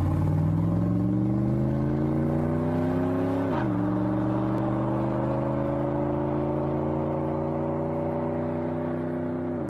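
Car engine accelerating, its pitch climbing steadily, then dropping sharply at a gear change about three and a half seconds in before climbing again through the next gear.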